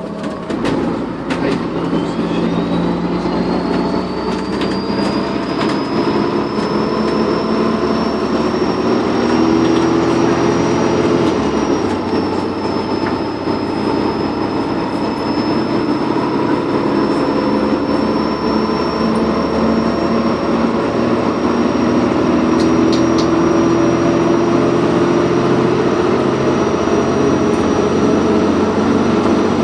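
Dennis Trident 2 bus pulling under load, its turbocharger whistle rising in pitch over the first several seconds and then holding high and steady, with a slight dip about twelve seconds in, over the constant run of the engine.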